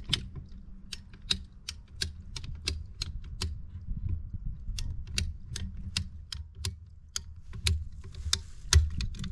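Ratcheting PVC pipe cutter clicking as it is squeezed through a water line, about four sharp clicks a second, with a pause about halfway through and a last few clicks near the end.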